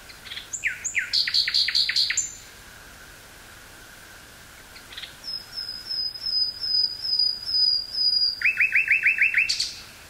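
Common nightingale singing: two phrases of fast repeated notes, the first about two seconds long, the second starting about five seconds in with a string of high notes and ending in a quick run of lower falling notes.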